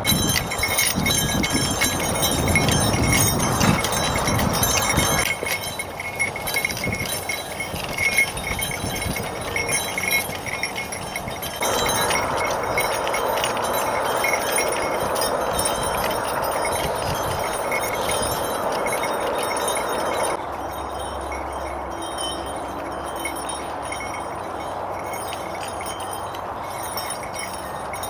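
Small bells jingling continuously over open-air background noise, the kind of bells hung on a working horse's harness. The background changes abruptly about 5, 12 and 20 seconds in.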